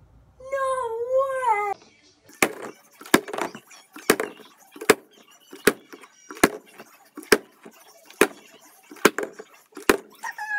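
A brief wavering cry, then a run of sharp clacks about once every 0.8 seconds: a large plastic sports-drink bottle flipped and landing over and over.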